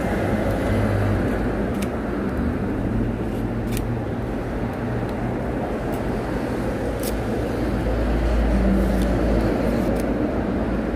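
Snap-off utility knife shaving a thin wooden stick, with short scraping clicks every second or two, over a steady low rumbling noise.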